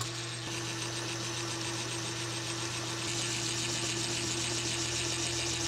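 Metal lathe running steadily as its cutting tool turns down the shank of a steel wheel stud: an even motor hum with a hiss over it that grows a little stronger about three seconds in.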